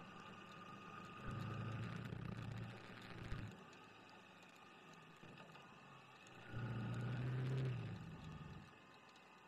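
Motor vehicle engines in street traffic: two stretches of a low, steady engine note, each lasting about two seconds, with a short click between them.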